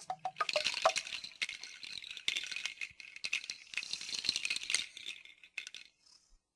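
A hand rattle or shaker shaken in a fast stream of clicks, with a few short pitched notes in the first second, dying away about six seconds in as the music ends.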